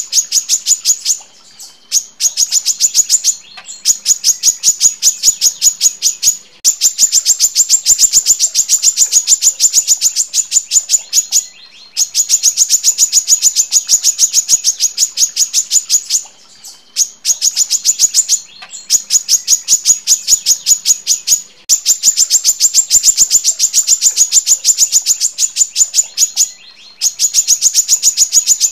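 Female brown-throated sunbird (kolibri kelapa) singing long, dense runs of sharp high chips, about eight a second, each run lasting a few seconds with short breaks between.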